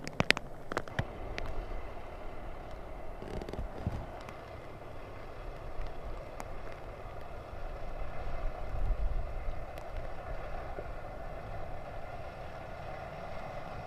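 Fire engine's diesel engine running at a distance, a steady drone, with a low rumble swelling around the middle. A couple of sharp clicks right at the start.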